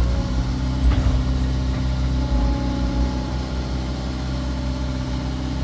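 CAT excavator's diesel engine running steadily, with a single click about a second in.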